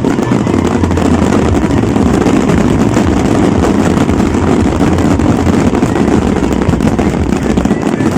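A fireworks barrage going off nonstop: a dense, unbroken crackle of many small bangs, with a heavy low rumble underneath.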